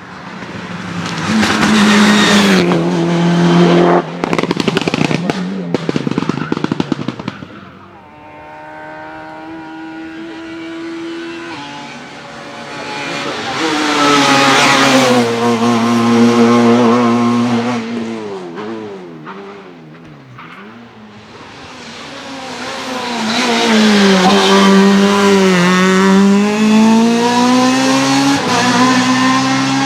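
Racing cars on a hillclimb accelerating hard past one after another, each engine revving up through the gears with its pitch climbing and dropping at the shifts. A burst of rapid popping and crackling comes a few seconds in.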